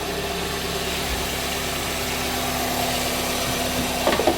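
Hyundai Trajet's four-cylinder petrol engine idling steadily and evenly, its cylinder 4 misfire cured by new spark plugs. The idle is still a little high because the engine is not yet warm. A brief sharper noise comes near the end.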